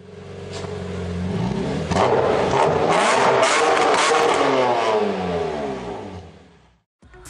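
A car engine revving hard, its pitch sweeping up and down repeatedly, with sharp crackles in the middle. It swells in over the first two seconds and fades away near the end.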